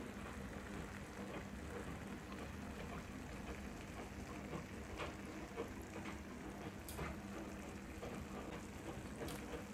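Beef pulao sizzling and crackling softly in a pan on the stove, a steady patter of tiny pops with a few sharper ticks, over a low steady hum.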